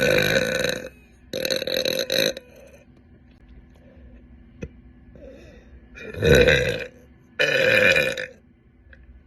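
A young woman burping loudly four times: two long burps in quick succession at the start, then after a pause of a few seconds two more near the end.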